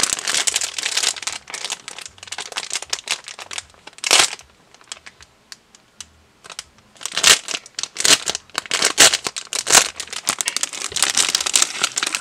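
Thin plastic packaging crinkling and rustling in handling as a squishy bun is pulled out of its bag, with a quiet pause of about two seconds in the middle.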